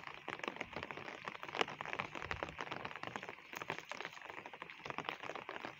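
Steady rain, heard as a dense run of small irregular drop ticks over a soft hiss.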